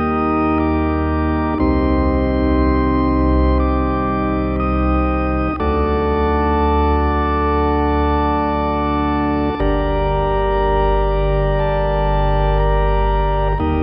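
Instrumental music of sustained organ chords over a deep bass, the chord changing every one to four seconds.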